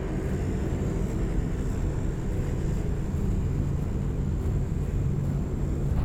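Steady low drone of a four-engine turboprop transport plane in flight.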